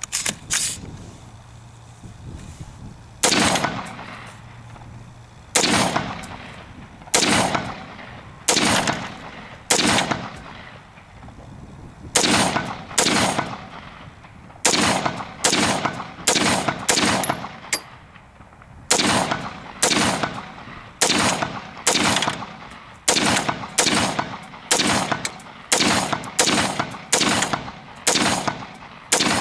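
Smith & Wesson M&P15 Sport II AR-15 rifle firing .223 rounds semi-automatically, one shot at a time: about thirty shots, spaced a few seconds apart at first and quickening to about two a second. This is the brand-new rifle's first magazine, and it runs without a jam.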